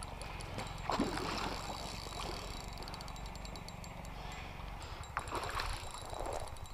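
Hooked carp splashing and swirling at the pond surface as it is played in close to the bank, with louder splashes about a second in and again around five to six seconds, over a steady low hum.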